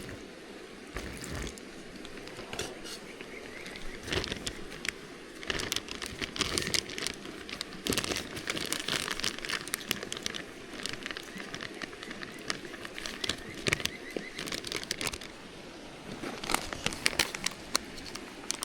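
Irregular crinkling and rustling of something being handled, with scattered light clicks and knocks, busiest from about four seconds in.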